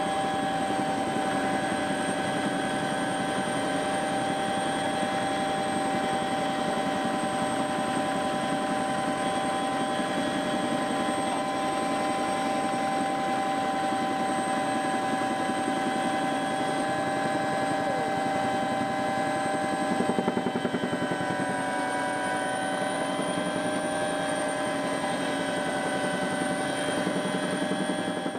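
Helicopter in flight heard from inside the cabin: a steady turbine and transmission whine of several high tones over the fast, even thrum of the rotor.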